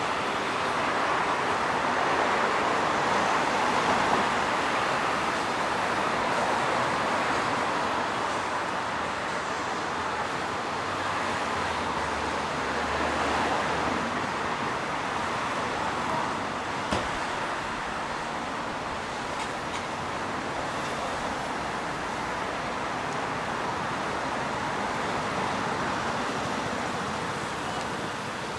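Steady city street traffic, cars driving past in a continuous rushing wash that swells and eases, with one short click about two-thirds of the way through.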